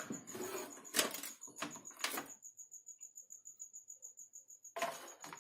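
A motherboard being handled and lifted out of a desktop PC case: a few sharp clicks and knocks in the first two seconds, then a short scraping rustle near the end. A faint high-pitched chirp pulses several times a second throughout.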